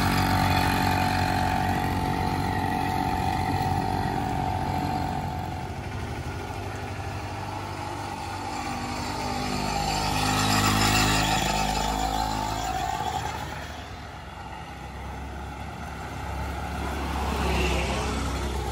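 Hand-built quad bike's engine running as it is ridden, growing loudest and changing pitch as it passes about halfway through, fading, then building again near the end.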